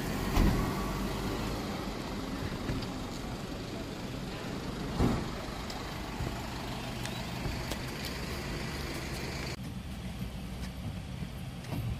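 Road vehicles idling and moving at a kerbside, a steady low engine hum with two dull thumps, about half a second in and about five seconds in. Near the end the sound turns duller as it is heard from inside the cab of a songthaew.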